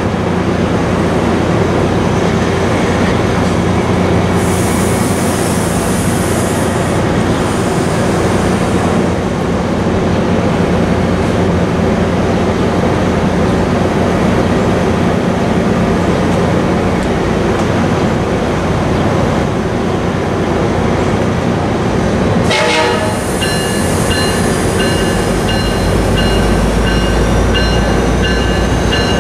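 MARC diesel-hauled bilevel commuter train at the station platform, running with a steady, loud rumble, with wind buffeting the microphone. About 22 seconds in, a sharp sound is followed by steady, pulsing high tones and a slowly rising whine.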